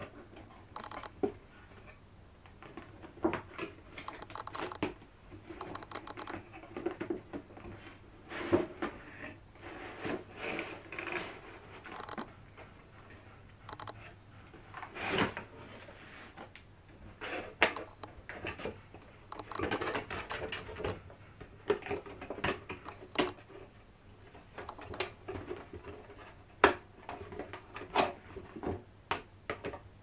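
Cardboard doll box being handled and slid out of its paper sleeve: card scraping and rustling, with many sharp taps and clicks.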